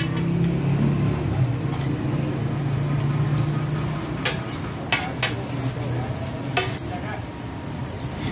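Parathas frying on a hot griddle, sizzling, with a metal spatula clicking and scraping against the griddle several times in the second half.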